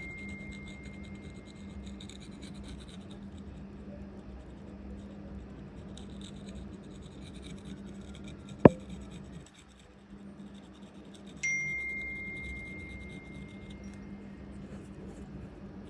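A steady hum with one sharp click about nine seconds in, and a ringing, chime-like tone that sounds about eleven and a half seconds in and fades out over a few seconds.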